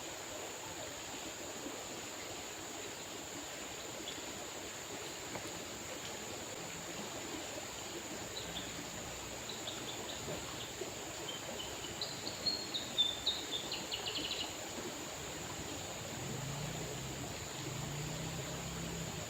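River water flowing steadily. A bird calls in a quick run of chirps about two-thirds of the way in, and a faint low hum comes in near the end.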